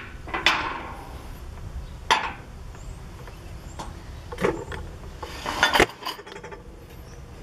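Glassware and dishes clinking and knocking: about four separate sharp strikes with short ringing tails, the last a quick double clink a little over two-thirds of the way through.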